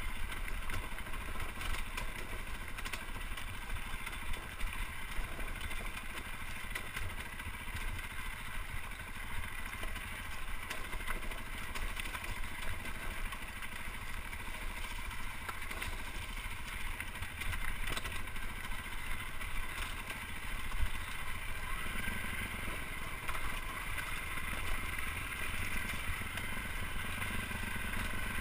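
Dirt bike engine running steadily as the bike is ridden over a rough, rocky trail, with scattered sharp ticks through it.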